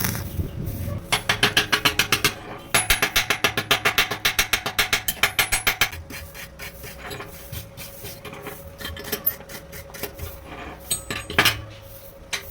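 Rapid, even metal-on-metal strokes, about seven a second, in a short run and then a longer one, followed by lighter scattered clicks and a sharp knock near the end.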